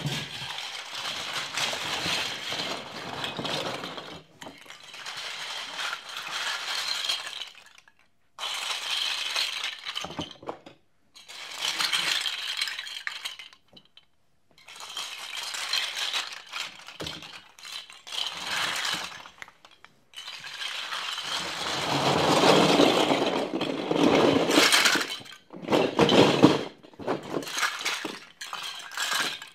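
Plastic Lego bricks clattering and rattling as they are poured out and scooped or shaken together, in repeated runs a few seconds long with short pauses between them; the longest and loudest pour comes about two-thirds of the way through.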